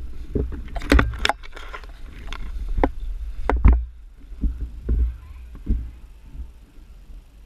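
Handling noise on a body-worn camera: rustling and bumping with a low rumble, and several sharp clicks, about four close together around a second in and two more around three and a half seconds in.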